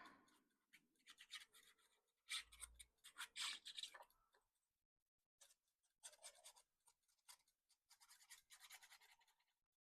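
Faint rubbing and scratching of paper being handled, in several short spells, with a soft low thud about two and a half seconds in.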